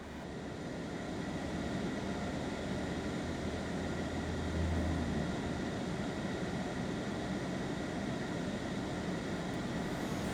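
A steady droning hum with a hiss over it; the low hum swells briefly about halfway through.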